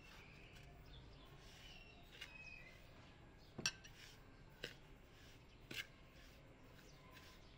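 A slotted metal skimmer stirring semolina for dry-roasting in a large aluminium pot, giving four sharp clicks of metal against the pot over otherwise near-silent stirring.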